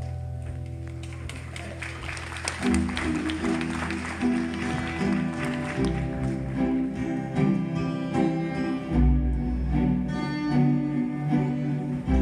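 Acoustic guitars playing an instrumental passage. A held chord dies away, then picked notes start up about two and a half seconds in, with deep bass notes underneath later on.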